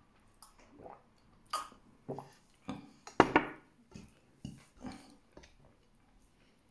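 Drinking water from a glass, then eating rice and chicken by hand from a plate. A string of short swallowing, clinking and plate-handling sounds, the loudest a little after three seconds.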